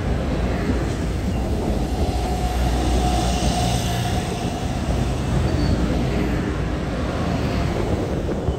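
Taiwan Railway stainless-steel electric multiple unit rolling slowly past the platform, its wheels and running gear making a steady low rumble with a faint tone in the middle.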